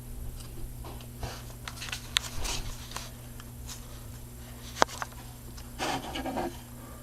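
Scattered clicks and short rustles of hands handling a small battery-powered device, with one sharper click near the middle, over a steady low hum.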